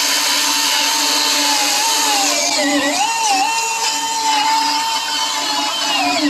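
Milwaukee 14-inch top-handle cordless chainsaw cutting through a large log at full speed: a steady high whine of motor and chain. The pitch sags for a moment about halfway through as the chain bites under load, then recovers, and drops again near the end.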